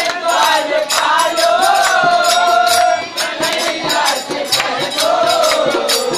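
Devotional bhajan: a man's voice sings a long, wavering melodic line, accompanied by harmonium and dholak, with sharp percussion strokes keeping time.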